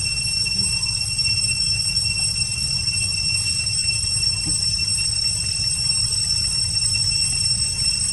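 Steady outdoor ambience: a constant high-pitched whine made of several held tones over a low rumble, with no distinct events.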